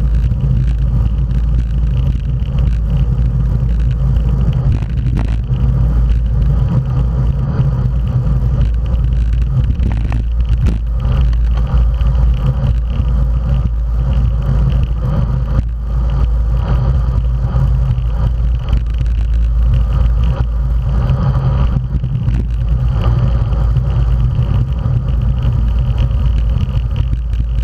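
Steady wind rumble on a bicycle-mounted action camera's microphone at racing speed, mixed with tyre noise on asphalt.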